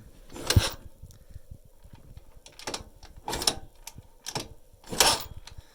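Viper 150 motorcycle's single-cylinder engine turned over on the kick-starter about four times without starting, each stroke a sharp mechanical clatter. Internal noise that the mechanic puts down to a worn, oil-starved piston and rings.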